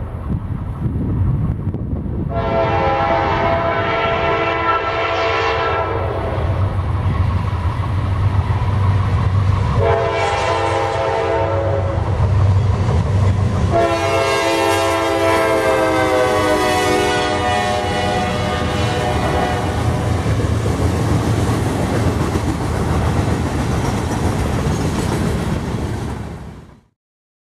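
Diesel freight locomotive horn sounding three blasts (a long one, a shorter one, then the longest) over the steady rumble and clatter of a freight train rolling by. The sound fades out near the end.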